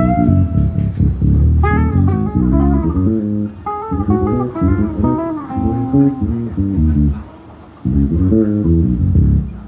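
A band's guitar and bass guitar playing a melodic passage at a sound check, loud and continuous. The sound drops away briefly about seven and a half seconds in, then the playing resumes.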